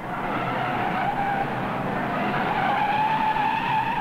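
Tire squeal of an Indy roadster sliding after a spin: one long squeal that rises slightly in pitch, over the noise of race cars running.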